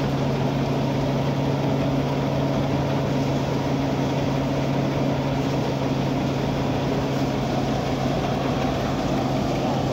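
Rice thresher running steadily under engine power: a constant low hum with a strong steady tone that holds the same pitch throughout.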